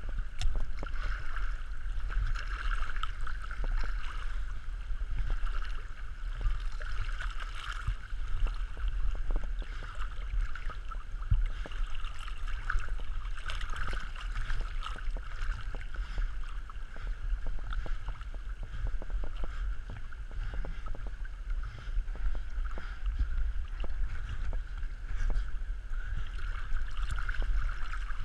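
Flowing stream water sloshing and lapping against a camera held at the waterline, a steady wash of current with many small splashes and ticks of water hitting the lens housing.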